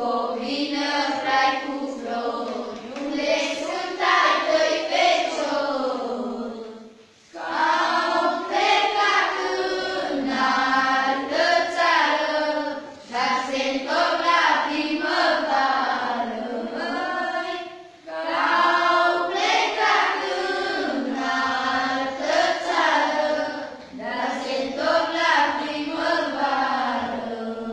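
A group of girls singing a Romanian folk song together, with several long sung phrases separated by brief breaks about 7 and 18 seconds in.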